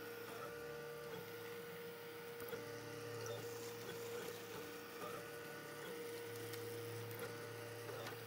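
Ultimaker 3D printer printing: the stepper motors whir in steady tones that switch and shift as the print head changes moves, over a constant hum, with faint ticks.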